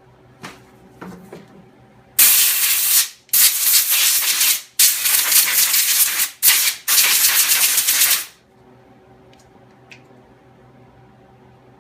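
Pressurised spray hissing in about five hard bursts over some six seconds, blasting dirt off a clutch part, after a couple of light handling clicks.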